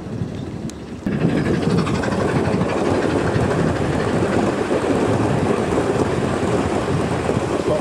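Gauge 1 model train running past on garden railway track: a steady rumble of coach wheels on the rails, growing louder about a second in.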